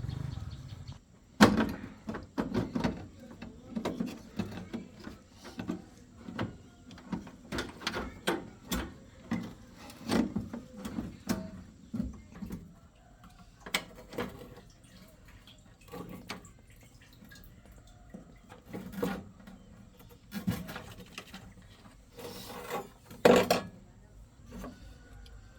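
A series of irregular knocks and clanks, some sharp and some dull, at uneven intervals, loudest about a second and a half in and again near the end.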